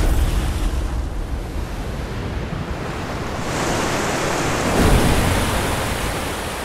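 A rushing surge of water, like a flood bursting through a doorway. It swells to its loudest about five seconds in and then eases off.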